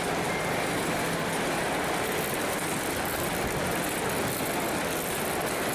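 Steady, even background din of a busy airport terminal, with no distinct sounds standing out.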